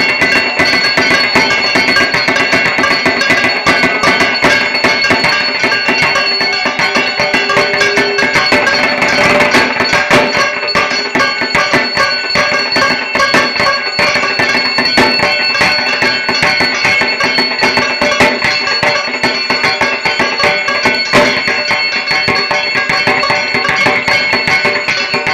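Bengali dhak drums beaten with sticks in a fast, continuous rhythm, with a steady high ringing tone underneath.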